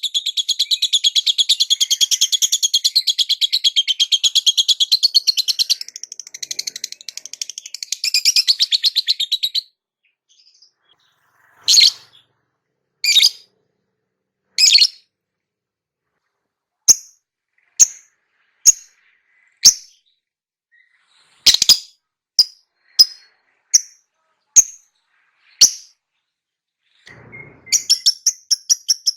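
Lovebird song: a long, very rapid, high chattering trill that stops abruptly about ten seconds in. Then come single sharp chirps, a second or so apart, and the rapid chatter starts again near the end.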